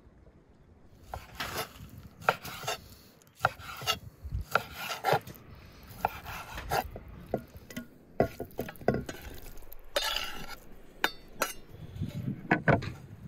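Knife slicing raw beef heart into chunks on a wooden cutting board: irregular cutting strokes with sharp taps of the blade against the board.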